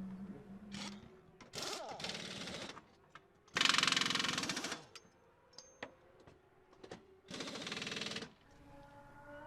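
Pneumatic pit-stop wheel guns (impact wrenches) firing in rapid rattling bursts of about a second each, four times, the loudest about four seconds in.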